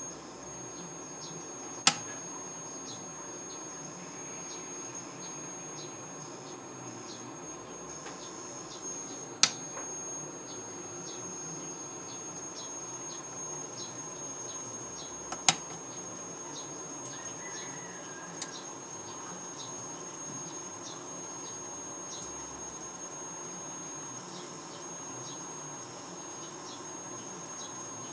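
Insects chirping in faint short pulses about twice a second over a steady high-pitched whine, with four sharp clicks standing out.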